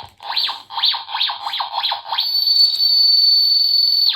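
Toy handheld security scanner wand sweeping up and down in pitch about half a dozen times, the sweeps coming faster as it passes over a child, then switching about two seconds in to a steady high alarm tone that cuts off sharply: the scanner signalling that it has detected metal.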